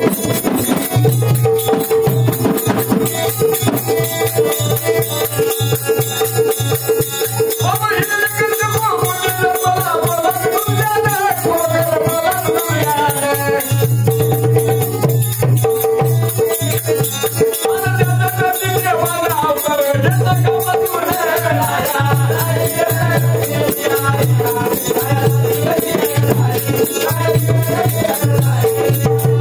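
Folk music accompaniment: a held drone note, fast steady jingling percussion and a pulsing low drum, with a voice singing melodic phrases twice in the middle.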